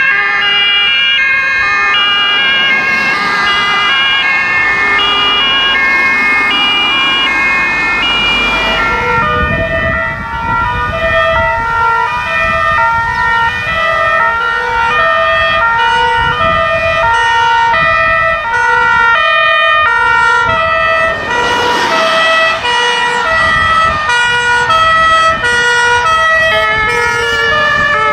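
Several German emergency vehicles' two-tone sirens (Martinshorn) sounding at once, each stepping back and forth between two pitches at its own rate, with a lower-pitched one joining about a third of the way in. Engine and tyre noise swells twice as vehicles pass close.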